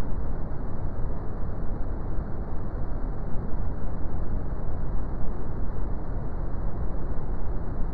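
Brown noise: a steady, deep rumbling hiss, strongest in the bass, with no changes or events.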